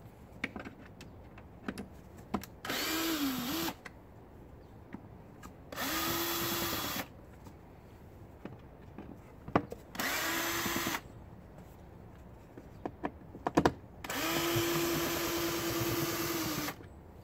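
Cordless drill-driver backing out the screws of an air filter housing lid: four short runs of the motor with a steady whine, the first dipping in pitch as it takes the load, the last about two and a half seconds long. Light clicks of plastic being handled between the runs.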